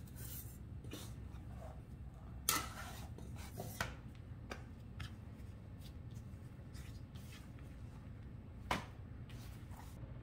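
Hands folding and shaping bread dough on a floured silicone pastry mat: faint rubbing and handling sounds, with a few short taps, the clearest about two and a half seconds in and near nine seconds.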